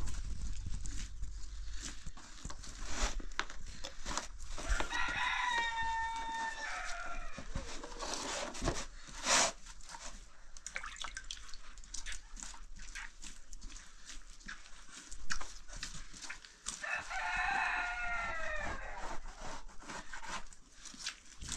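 A rooster crows twice, once about five seconds in and again near the end; each crow is held and then falls away. Scattered sharp knocks and clatter sound in between.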